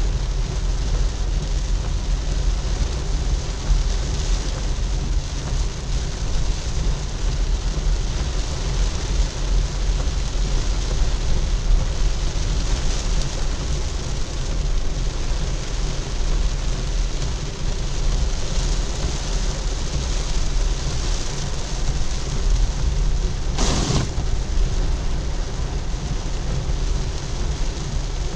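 Heavy rain and wet-road noise from a car driving through a downpour, over a steady low rumble. A short, sharp hiss stands out once, about three-quarters of the way through.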